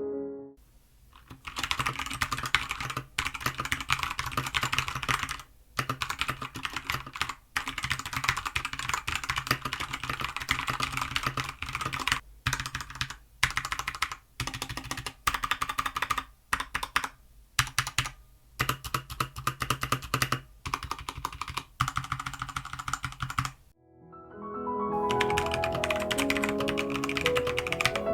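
Fast, continuous typing on a Keychron K2 V2 mechanical keyboard with Gateron Brown switches, a dense clatter of keystrokes broken by brief pauses. Near the end the typing stops and music comes in.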